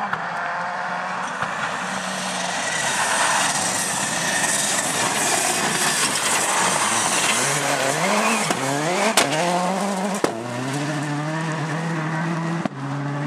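Peugeot 206 WRC rally car's turbocharged four-cylinder engine revving hard as the car slides past on a loose surface, with a hiss of tyres and gravel as it goes by. In the second half the revs climb again and again through the gears, and there is a sharp crack about nine seconds in.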